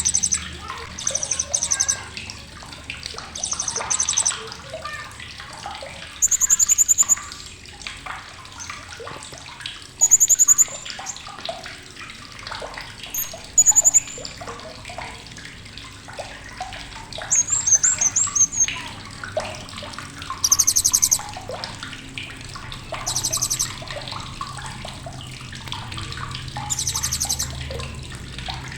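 Blue-crowned hanging parrot (srindit) giving sharp, very high, rapid chattering trills in short bursts of about half a second to a second, every few seconds, over softer chirps and a steady faint hiss.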